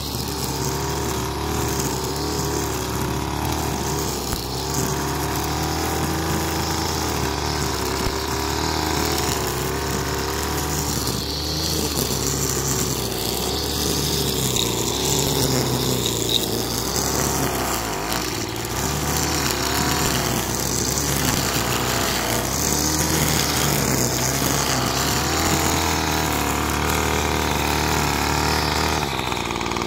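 Gas-powered string trimmer running, its small engine's pitch rising and falling as it cuts roadside grass and weeds. The engine eases off near the end.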